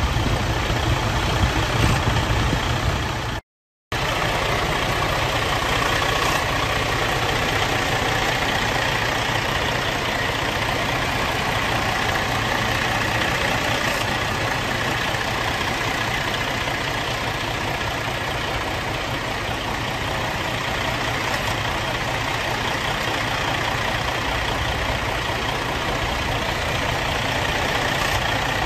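Detroit DD15 inline-six diesel idling steadily, heard close up in the open engine bay. The sound drops out completely for a moment about three and a half seconds in.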